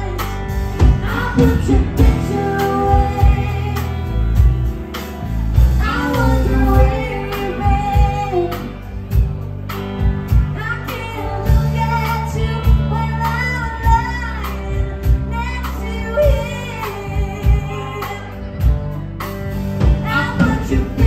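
Live band music: a woman singing into a microphone over electric guitar and a drum kit keeping a steady beat.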